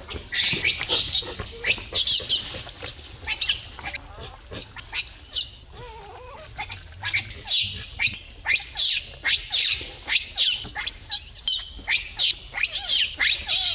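Baby macaque screaming in a run of high, arching cries, about one or two a second, thinning out briefly in the middle: the distress crying of an infant left alone by its mother.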